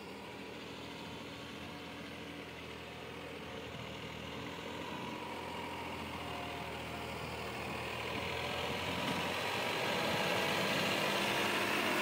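Farm tractor's diesel engine running steadily as the tractor drives along a muddy track, growing gradually louder as it comes closer and loudest near the end.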